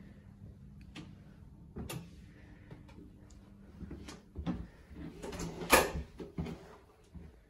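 Hotel room door and handling sounds: scattered clicks and knocks, building to a cluster of knocks with the loudest just before six seconds in, typical of the entry door swinging shut and latching, over a faint steady low hum.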